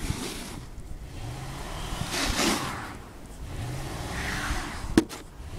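Pickup truck's engine running low and steady, with a swish of noise about two seconds in and one sharp knock near the end.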